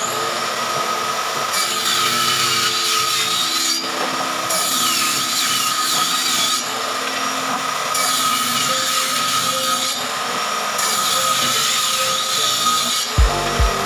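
Table saw running with a steady whine, cutting wooden boards in four passes of about two seconds each. A couple of wooden knocks come near the end.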